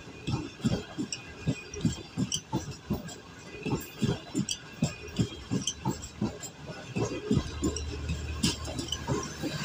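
Passenger coaches of a train passing at slow speed, their wheels knocking over the rail joints with a clickety-clack of about three knocks a second. A steady low hum comes in near the end.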